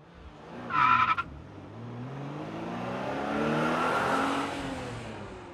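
Car engine accelerating, its pitch rising as it grows louder, peaking about four seconds in and then easing off, with a short high squeal about a second in.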